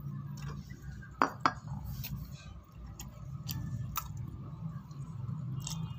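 Spoon knocking and scraping on a plastic dinner plate while eating: a few scattered sharp clicks, the two loudest close together about a second in, over a low steady hum.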